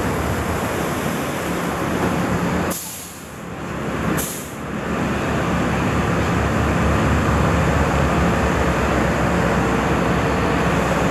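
Steady low rumble and rushing noise of a car ferry under way, its engines running. About three seconds in the sound briefly drops away, with a sharp click as it goes and another as it comes back.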